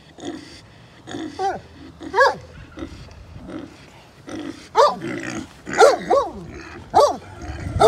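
Young feeder pig squealing in about six short rising-and-falling calls while it is held down for eye ointment.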